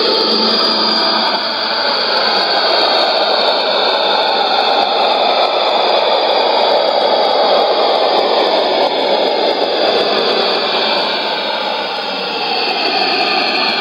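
Shortwave radio receiver (Sony ICF-2001D) tuned to a clash of two stations on one frequency: a dense, rushing noise-like test signal fills the audio, with a few faint pitch glides sliding down through it, and no speech heard.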